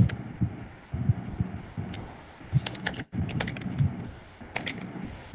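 Typing on a computer keyboard: irregular key clicks in short runs.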